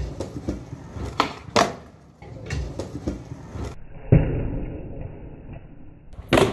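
Skateboard on concrete: wheels rolling and several sharp wooden clacks of the tail popping and the board landing, with the loudest pops about four seconds in and near the end. For a couple of seconds in the middle the sound is muffled.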